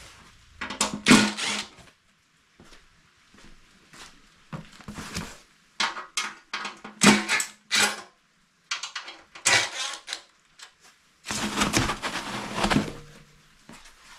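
Ridgid cordless drill-driver with a 4 mm hex bit run in short bursts to back bolts out of a steel bumper, with clicks and clinks of the bolts and metal. Near the end there is a longer, louder rustle of foam packing being pulled away.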